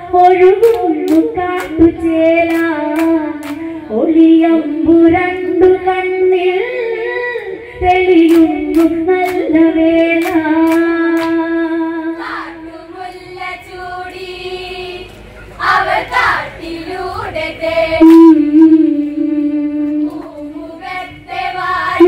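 Women singing a Malayalam Onamkali song through a microphone in long, drawn-out notes, with the dancers' hand claps in a steady rhythm of about two a second for stretches. A brief loud burst about sixteen seconds in.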